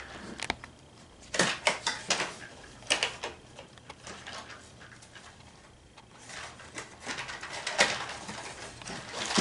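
Handling noises from a box of Fiocchi .22 match ammunition: scattered sharp clicks, taps and short scraping rubs, busiest in the second half.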